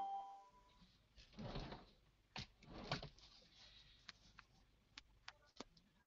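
Near silence: the tail of a short chime fades out in the first second. Two soft rustling swells and a few faint scattered clicks follow.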